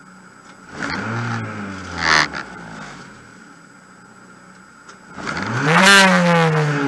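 Rally car engine revved twice while the car stands still: the pitch climbs and falls back, the second rev bigger and longer than the first. Each rev ends in a short sharp burst as it drops back.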